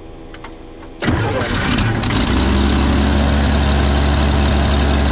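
1955 Chevrolet 6100 truck's inline-six engine starting: a couple of faint clicks, then about a second in it fires, stumbles briefly and settles into a steady idle.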